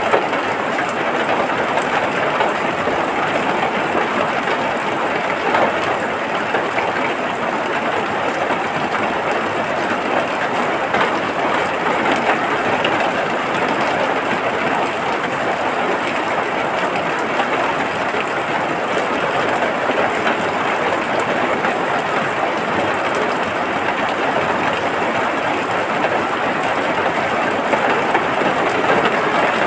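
Steady rain falling, an even hiss with no breaks or gusts.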